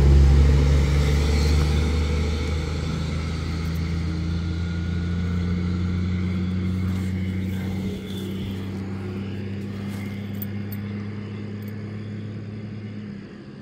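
Low, steady hum of a motor vehicle's engine, slowly fading and dropping away near the end, with a few small clicks and rustles of handling.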